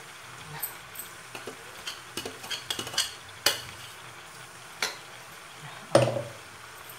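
Steel slotted spoon clinking and scraping against a metal kadai while spreading paste over vegetables. A few sharp knocks stand out, the loudest about six seconds in, over a faint steady sizzle of the vegetables frying on a low flame.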